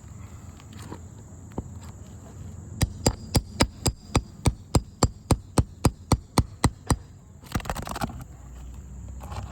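Roofing hammer striking in a quick, even run of about sixteen blows, about four a second, starting about three seconds in, followed by a brief scrape; typical of driving a nail puller under a shingle nail during a roof repairability test.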